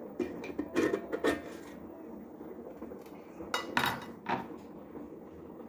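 A few knocks and clatters of a food processor's plastic bowl, lid and blade being handled, two close together about a second in and a cluster more near the middle.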